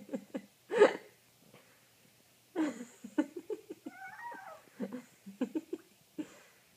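Jack Russell terrier and orange tabby cat play-wrestling: bursts of short, low growling grunts, a loud breathy huff about a second in, and a drawn-out, wavering cat cry near the middle.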